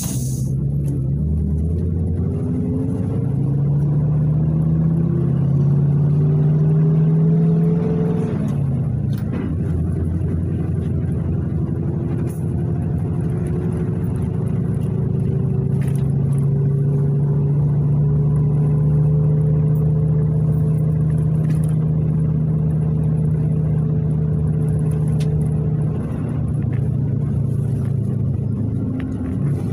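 PAZ-32054 bus engine heard from inside the cabin. It rises in pitch as the bus pulls away, drops sharply at a gear change about eight seconds in, then climbs again and runs steadily at cruising speed before easing off near the end. A few faint clicks and rattles come through along the way.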